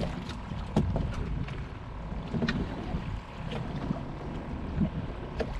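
Wind rumbling on the microphone and water moving around a small fishing boat, with a few sharp knocks and clicks scattered through it.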